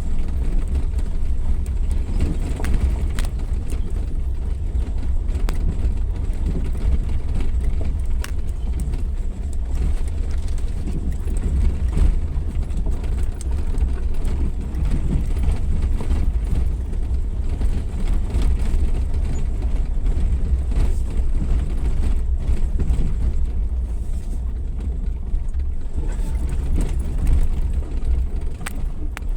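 Suzuki Jimny 4x4 driving off-road: a steady low engine and drivetrain rumble with scattered knocks and rattles from the rough ground.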